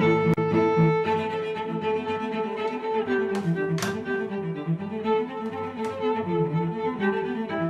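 Background music of bowed strings with cello, violins and bass, moving in a quick, rhythmic line. A few sharp clicks cut through it: one near the start, two a half-second apart a little before the middle, and one more later.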